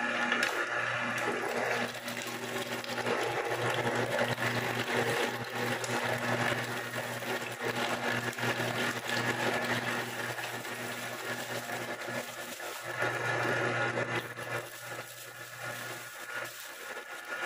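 Electric meat grinder running with a steady motor hum while grinding raw chicken heads, with an irregular crackling as the bone and flesh are forced through the plate.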